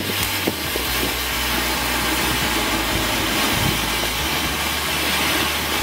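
Ground fountain firework (a flowerpot-type cone) burning, spraying sparks with a steady rushing hiss.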